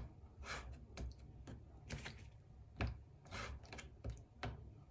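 Kitchen knife cutting raw chicken liver into small pieces on a wooden cutting board: a series of soft, uneven knocks of the blade on the board, about two a second.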